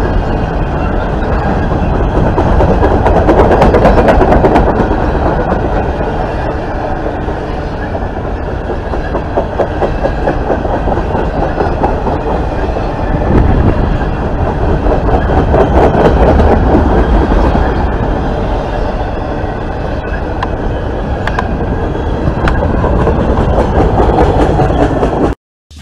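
Norfolk Southern freight train cars rolling past close by: a steady rumble of steel wheels on the rails with repeated clicks as the wheels cross rail joints. The sound cuts off abruptly near the end.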